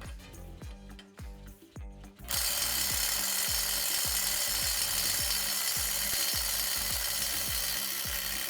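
Background music with a steady beat. About two seconds in, a Kobalt next-gen 24-volt brushless impact driver on speed 3 starts hammering continuously on a nut, working to break it loose at 350 foot-pounds, and keeps going.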